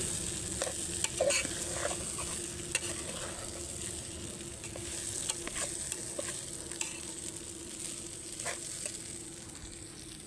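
Khichdi sizzling in a metal pot over a gas burner while a steel ladle stirs and scrapes through it. There is a steady hiss, with scattered clicks of the ladle knocking against the pot.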